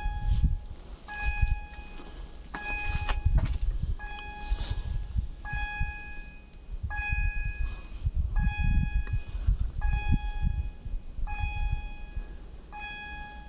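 Level-crossing warning bell ringing over and over, a short ding about once a second, the signal that a train is approaching. A gusty low rumble runs underneath.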